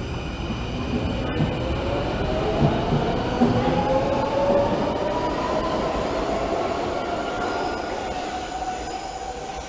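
Brussels metro train pulling out of an underground station, its drive whine rising in pitch as it gathers speed and then levelling off, over wheel rumble and a few clacks from the wheels.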